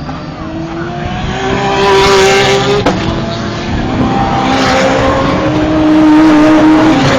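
GT race cars going past at speed, their engine notes climbing as they accelerate. The sound is loudest about two seconds in and again about six seconds in.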